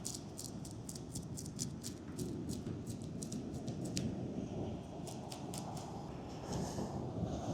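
Back of a knife scraping the scales off an Australian salmon in quick rough strokes: a rapid run of short scratchy clicks, several a second, with a short pause a little past halfway before the strokes start again.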